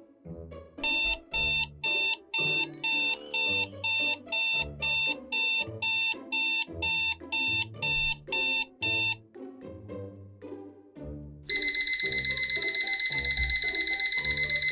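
Two electronic alarm sounds over background music: a high beeping alarm at about two beeps a second for some eight seconds, then, after a short gap, a faster, rapidly pulsing high alarm tone that starts near the end.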